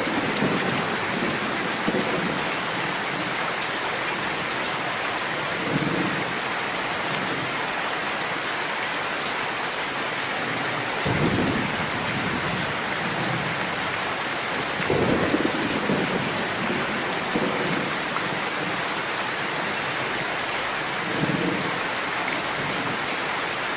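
Steady heavy rainfall, with low rolls of thunder rumbling up and fading away about five times.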